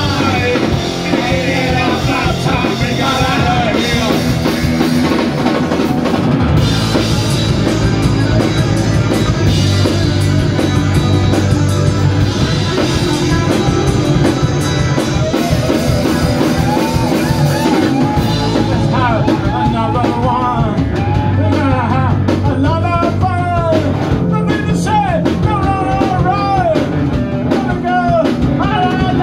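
Live punk rock band playing loud and steady: electric guitars, bass guitar and drum kit, with a man singing over them.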